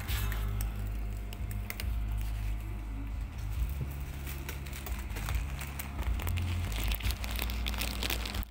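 Continuous band sealer running with a steady low hum, while plastic packaging crinkles and rustles. The crackling grows busier near the end.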